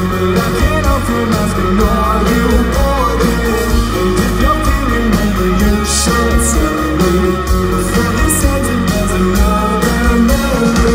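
Live rock band playing: electric guitar, bass and drums with cymbal hits, loud and steady.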